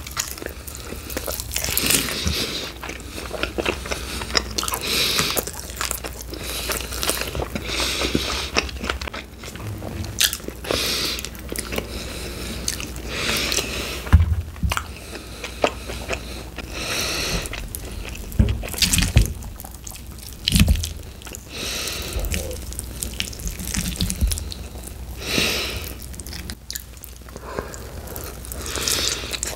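Close-miked eating of sauced chicken wings: bites, chewing and wet mouth smacks, with irregular sharp clicks and crunches.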